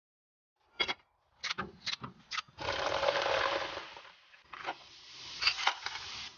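Kitchen work sounds: four sharp knocks, then a rushing noise lasting about a second and a half, then more knocks over a softer rushing noise.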